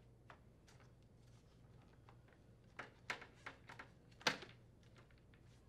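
Faint clicks and taps of a plastic control panel being pressed into place under the plastic retaining clips of an air-conditioner front grille, a cluster of them about three to four and a half seconds in.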